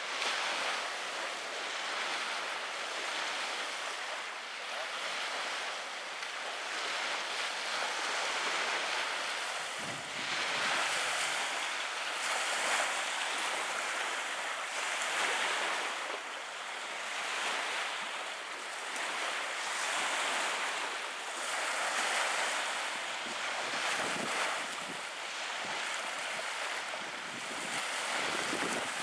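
Small lake waves lapping on a sandy shore, washing in with a swell every two seconds or so.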